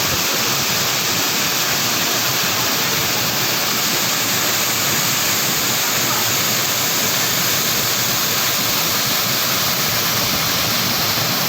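Waterfall with water pouring down in a steady, unbroken rush.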